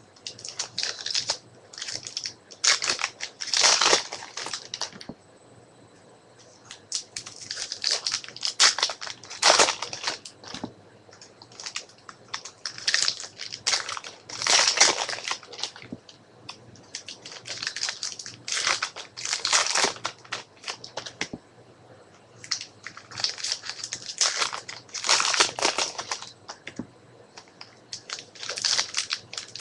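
Trading cards being handled and slid against one another in the hands, giving repeated bunches of crinkling rustles a few seconds apart.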